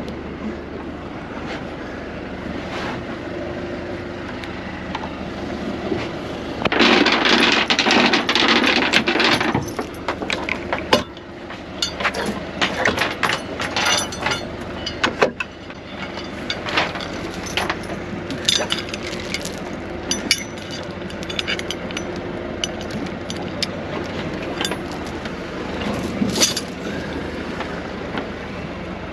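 Boat engine running steadily at low revs, with a loud rushing noise for about three seconds some seven seconds in, then a run of knocks and clicks of gear being handled.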